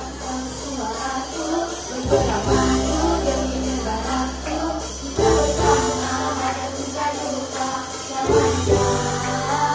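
A song performed live, sung by a boy and a woman into microphones over band accompaniment with a steady beat. The bass shifts to a new note about every three seconds.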